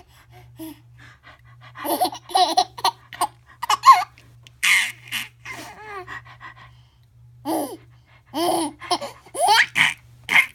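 Baby laughing in repeated bursts of giggles, set off by funny noises.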